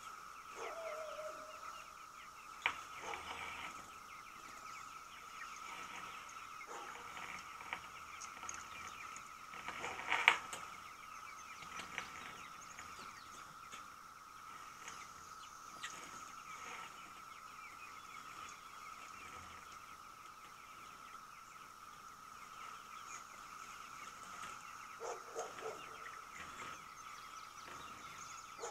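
Pastured chickens calling in a chicken tractor over a steady high background hum. There is a knock about three seconds in and a louder clatter about ten seconds in as the metal-sided pen is moved forward on its wheels.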